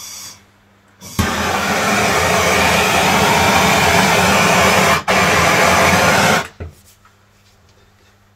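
Hand-held gas blowtorch burning steadily as it shrinks heat-shrink sleeving over a crimped cable joint. The flame's noise starts about a second in, cuts out for an instant about four seconds later, and stops about six and a half seconds in.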